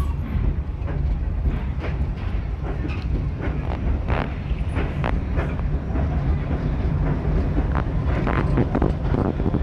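Small steam-hauled park train heard from an open passenger coach while it rolls along: a steady low rumble with irregular clicks and knocks from the wheels and rattling car.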